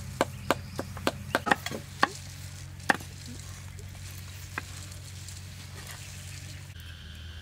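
Cleavers chopping garlic and chilies on wooden chopping blocks: quick, irregular knocks for about the first three seconds, then one more knock. A steady low hum runs underneath, and a steady high-pitched buzz starts near the end.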